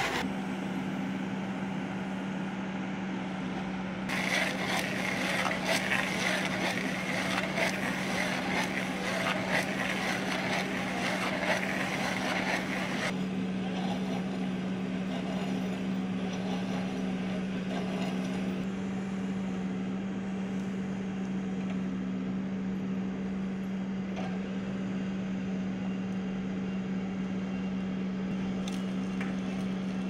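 Backhoe loader's diesel engine running at a steady speed, driving a Dipperfox SC600 stump crusher. From about 4 to 13 seconds in, dense crackling and crunching rides over it as the crusher breaks up a stump, then the engine carries on alone.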